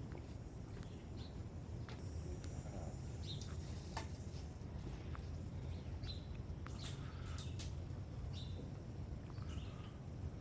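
A steady low rumble of background noise, with small birds chirping briefly now and then and a few sharp clicks or taps about four and seven seconds in.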